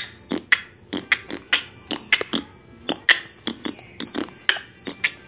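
A run of irregular sharp clicks and taps, about four a second, some with a brief ring.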